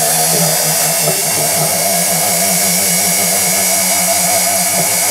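Jeweller's flex shaft rotary tool running steadily, a roll of 400-grit sandpaper on its mandrel sanding and smoothing the filed edges of a metal cuff bracelet.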